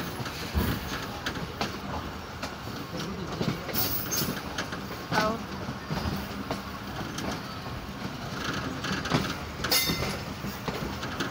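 Passenger train running along the track, heard close from a coach window: a steady rumble broken by irregular clicks and knocks from the wheels on the rails.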